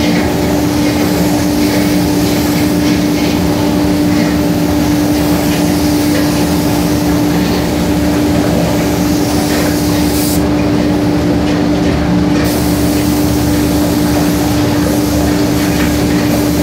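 Compressed-air spray gun hissing as it sprays paint, over a loud steady machine hum; the hiss breaks off for about two seconds a little past halfway, then resumes.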